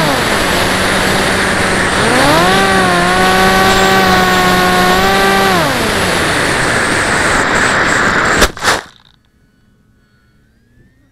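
Wind rushing over the onboard camera of a Tuffwing flying-wing drone, with its electric motor and propeller whining: the motor throttles up about two seconds in, holds a steady whine, and winds down around six seconds in. About eight seconds in the plane hits the grass with two sharp thumps and the rush of air stops.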